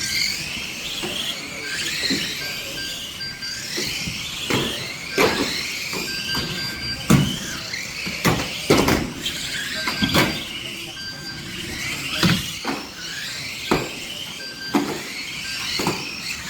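Radio-controlled stock cars racing: wavering high whines and tyre squeals as the cars run round the track, broken by repeated sharp knocks of cars hitting each other or the barriers, the loudest about seven and nine seconds in.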